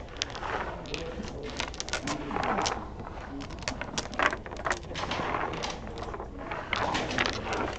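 Dominoes clicking and clacking against each other and the wooden tabletop as the face-down tiles are shuffled, then slid out and picked up one by one as the hands are drawn. The clicks are many and irregular.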